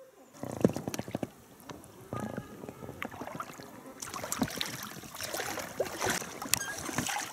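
Water slapping and splashing against a small boat on a river, with scattered sharp knocks and clicks on the boat. It starts suddenly just after the start.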